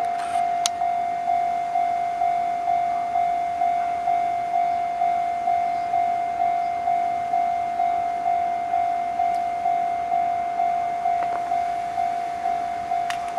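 Electronic railway level-crossing warning bell ringing for an approaching train: a single pitched ding repeating evenly about one and a half times a second, each strike fading before the next.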